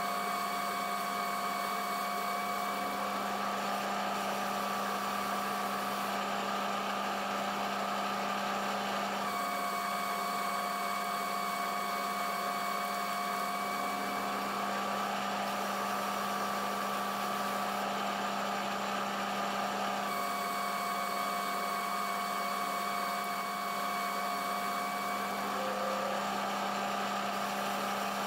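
Metal lathe running steadily, turning a steel roller while the cutting tool takes a cut. It gives a steady mechanical whine made of several held tones, which shifts slightly twice.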